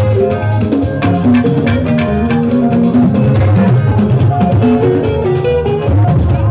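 A live band playing loud party music: a drum kit keeps the beat under electric guitar lines.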